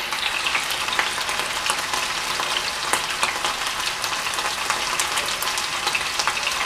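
Hot oil sizzling with constant small crackles around a whole stuffed chicken shallow-frying in a pan.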